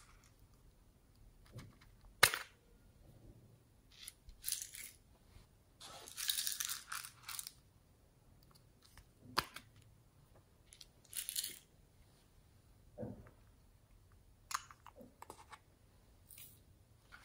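Small plastic slime containers being handled and opened: scattered clicks, crinkles and plastic snaps, with a sharp click about two seconds in and a longer stretch of crackling around the middle.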